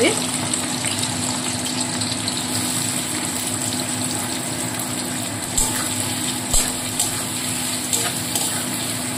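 Sliced onions sizzling in hot oil in a metal kadai, a steady hiss as they start frying down for beresta (crisp fried onions), with a few light scrapes and clicks of a spatula stirring in the second half. A steady low hum runs underneath.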